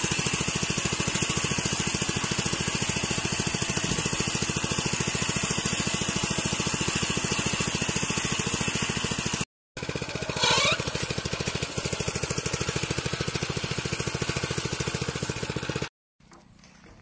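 Small single-cylinder engine of a single-wheel power weeder running steadily under load as its tines work the soil, a fast even chugging. The sound drops out briefly about halfway through, a short rising tone follows, and near the end the engine sound cuts off abruptly.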